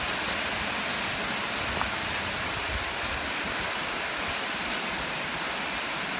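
A steady, even hiss of noise, with a faint tick about two seconds in.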